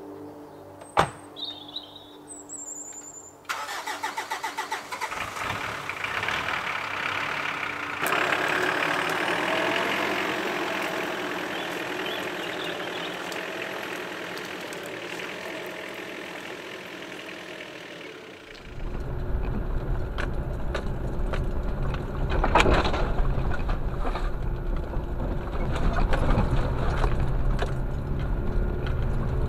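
Pickup truck's engine starting a few seconds in and running as the truck pulls away over a rough woodland track. About two-thirds of the way through, the sound becomes a heavy, low engine and road rumble heard from inside the cab. Near the start there is a single sharp click and a few bird chirps.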